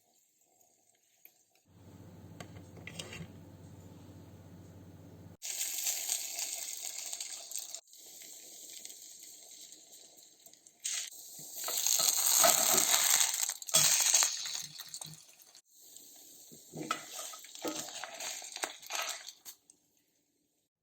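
Kitchen cooking sounds in several abruptly cut segments: first a steady low hum, then hissing noise and irregular clinks and clatter of utensils against cookware.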